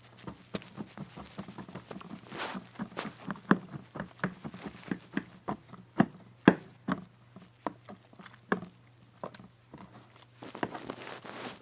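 Irregular light taps and clicks, several a second, with a few louder knocks near the middle, over a faint steady low hum.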